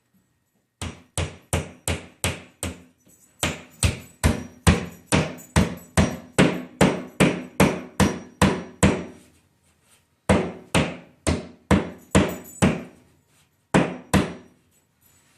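Hammer blows struck in quick, even runs of about two a second, with a few short pauses between runs.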